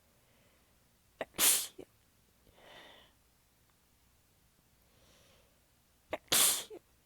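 A person sneezing twice, about five seconds apart. Each sneeze opens with a short sharp catch, and there is a softer breath between them. The sneezes are slightly held back, through tiredness and sore abs.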